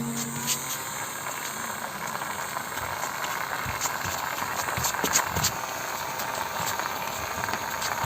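Small DC motor of a homemade matchbox toy car running with a steady whir, with scattered light clicks and rattles.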